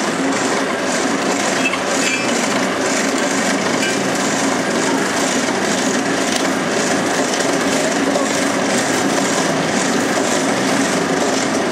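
Hand-pumped forge bellows blowing air into a charcoal fire: a steady rushing noise with a quick, even pulse of strokes.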